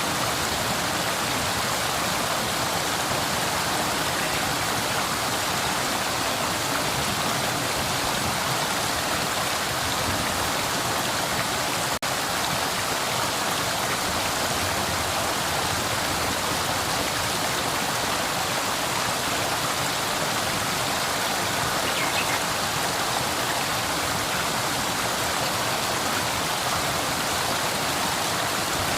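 River water flowing with a steady, even rushing sound, with one momentary break about twelve seconds in.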